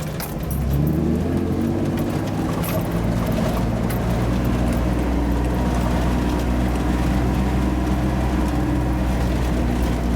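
1988 Toyota 4x4's engine pulling away and then running steadily under load up a dirt road, rising slightly in pitch and level about a second in.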